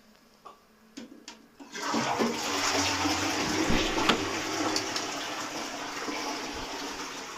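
A couple of faint clicks, then a loud rushing noise that starts about two seconds in, swells quickly, and slowly fades away.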